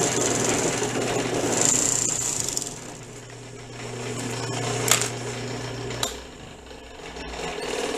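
Three-thread overlock (serger) sewing a hem at speed, stopping about two and a half seconds in. A low motor hum continues until about six seconds in, with a couple of sharp clicks as the fabric is handled.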